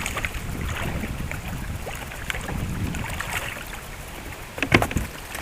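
Wind on the microphone, a steady low rumble, with a couple of sharp knocks near the end.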